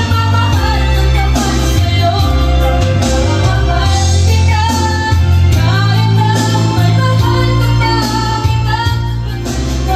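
Karaoke: a boy singing a Tagalog song into a handheld microphone over the karaoke machine's backing track, which has a strong, steady bass.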